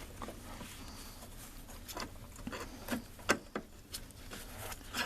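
A new hinge pin being worked into the door hinge of a 1995 Ford F-250: a scatter of light clicks and taps with some rubbing, the sharpest tap a little after three seconds in.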